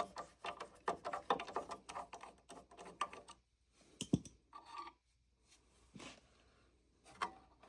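Hands working a treadmill's controller board loose from its housing: rapid scratching and clicking for the first few seconds, then a single knock about four seconds in and a few scattered taps.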